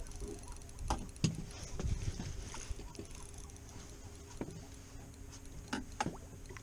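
Handling noise in a small fishing boat while a fish is reeled in on a spinning reel: a few sharp clicks and knocks, about a second in and again near the end, over a faint steady hum and low wind rumble.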